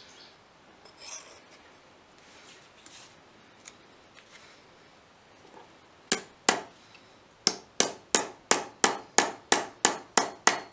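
Hammer tapping a small cold metal collar folded around a sword blade's tang against the anvil: two blows about six seconds in, then a steady run of about ten ringing taps, roughly three a second. Before the blows there is only faint scraping as the piece is handled.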